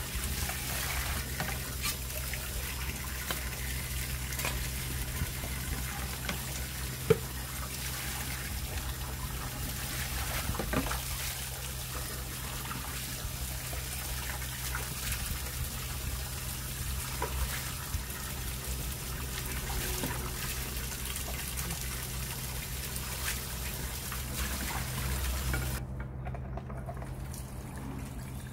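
Water running from a tap and splashing over the rim of a basin while vegetables and fruit are rinsed by hand, with small clatters of handling and one sharp knock about seven seconds in. The splashing stops abruptly near the end.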